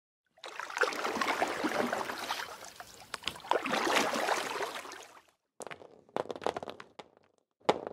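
Water sloshing and lapping, a noisy wash full of small splashes that swells for about five seconds, then two shorter surges near the end.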